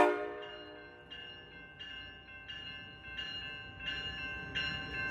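A MARC commuter train's bell ringing about every 0.7 s, growing louder with a rising low rumble as the train approaches, after a horn blast dies away at the start.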